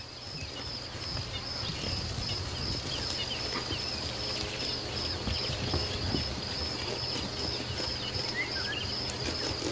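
Nature ambience: a high, steadily pulsing insect trill with scattered short bird chirps, over a low steady rumble.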